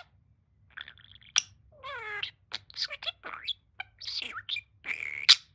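Pet budgie chattering: a run of short, high squeaky warbles, gliding chirps and sharp clicks with brief pauses, the garbled mimicry of a talking parakeet.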